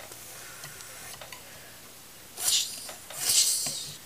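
Plastic Bionicle figures being handled and knocked together, with two short scraping rustles: a brief one about halfway through and a longer, louder one just after.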